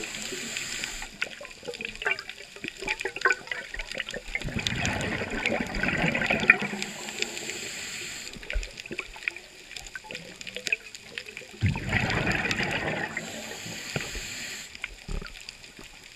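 Scuba diver breathing through a regulator underwater: three gurgling rushes of exhaled bubbles about six seconds apart, each near a short hiss of an inhale, with faint crackling throughout.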